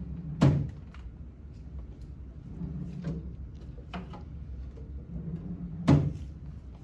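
Two sharp knocks about five seconds apart, with lighter clicks and handling noises between them, from a bedside cabinet's drawers and door being opened and shut.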